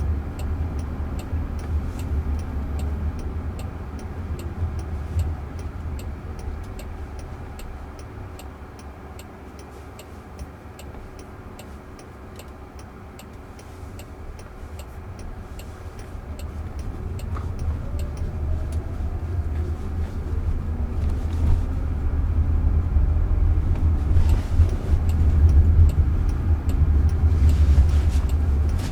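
Road and tyre rumble inside a Waymo self-driving car's cabin, dying down as the car slows about ten seconds in, then building again as it pulls away, with a faint rising motor whine. A turn signal ticks steadily throughout, a little faster than once a second.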